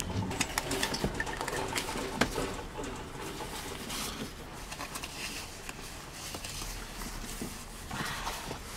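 Clicks and rustling as a toddler's car-seat harness is unbuckled and its straps pulled loose, with one sharper click about two seconds in.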